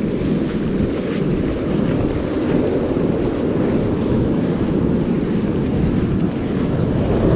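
Strong wind buffeting the microphone as a steady low rumble, with ocean surf breaking behind it.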